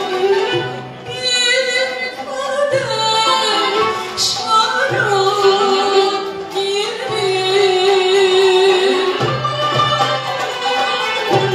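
Turkish classical music ensemble of violins, kanuns, oud, clarinet and percussion playing a song, with a voice singing over it.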